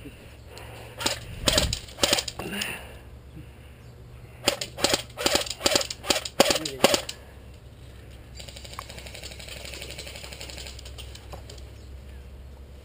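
Airsoft guns firing, sharp cracks in an irregular series: a few about a second or two in, then a quick run of about ten shots over some two and a half seconds. A faint steady hiss follows for a few seconds.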